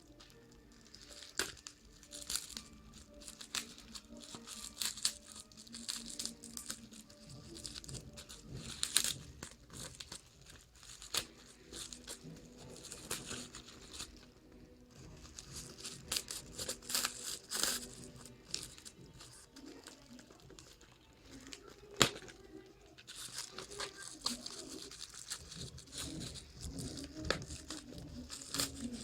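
Tape-wrapped packaging being torn and crumpled open by hand: irregular rustling, crinkling and tearing with scattered clicks. One sharp click about 22 seconds in is the loudest moment.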